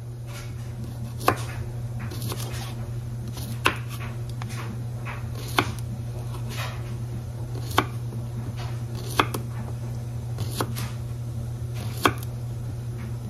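Knife slicing an English cucumber on a bamboo cutting board, each cut ending in a sharp tap of the blade on the wood, slow and unevenly spaced at about one every one to two seconds. A steady low hum runs underneath.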